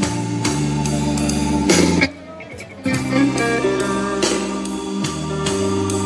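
Recorded music with a strong bass line and a steady beat, played back through a compact portable Bluetooth speaker. The music drops away briefly about two seconds in, then comes back.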